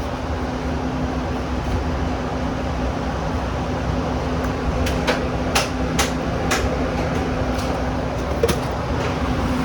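Steady ventilation hum with a constant low tone, and a few sharp clicks and knocks of kitchen utensils and containers about halfway through and once more near the end.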